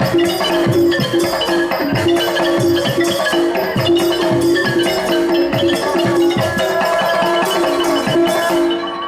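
Thai piphat-style ensemble music accompanying a likay performance: fast runs on a ranat (Thai xylophone) over a steady beat of small cymbals and drums. The high percussion stops shortly before the end.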